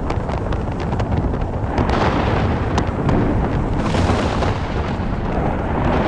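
Rolling thunder: a continuous deep rumble that swells about two seconds in and again about four seconds in, with scattered sharp ticks through it.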